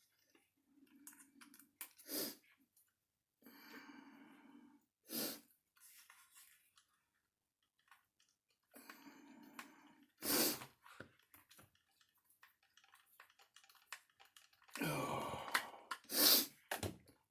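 Small screws being turned by hand into plastic RC kit parts: short stretches of faint grinding creak as each screw goes in, broken by four sharp clicks of parts and tools knocking together. Louder handling noise comes near the end.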